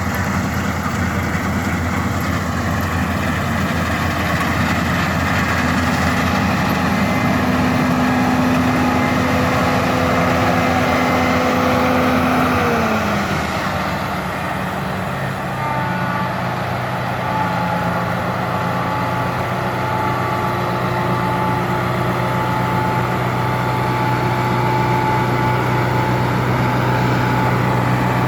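Case IH 1640 Axial-Flow combine running with a steady engine and machinery hum. A little under halfway through, the pitch slides down, the sound dips briefly, and it then settles into a lower steady hum.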